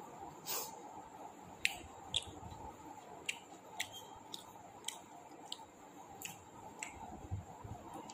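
A person eating and chewing food, with a series of short wet clicks and smacks from the mouth, about one every half second.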